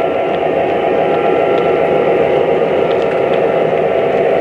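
O-scale 3-rail model freight train running past: steady rolling noise of metal wheels on the track, mixed with the Atlas EMD F7 diesels' on-board sound system.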